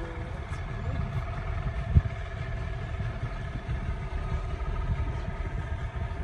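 A small boat's motor running slowly at low throttle, a low steady hum, with a single short knock about two seconds in.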